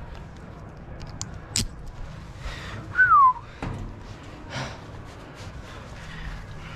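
A single short whistle about three seconds in, sliding down in pitch over about a third of a second. It is the loudest sound, with a few light clicks and knocks around it over a low steady hiss.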